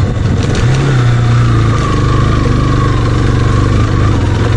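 Motorcycle engine running steadily as it is ridden: a low drone that rises slightly in pitch a little under a second in, then holds.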